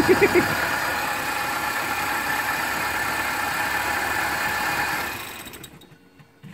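The fuel-injected engine of a Moskvich 2140 running steadily, then winding down and stopping about five seconds in.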